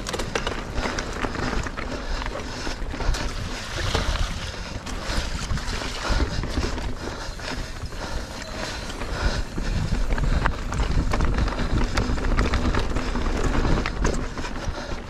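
Wind buffeting the microphone of a mountain biker's action camera while riding, over the steady rumble of tyres and the clicks and rattles of the bike on a dirt trail.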